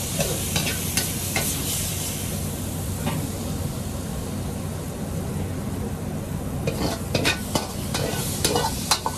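Ginger pork and onions sizzling in a hot pan while a metal ladle scrapes and clinks against it, scooping the meat out. Clatter comes in a cluster near the start and again over the last few seconds, over a steady hiss and a low hum.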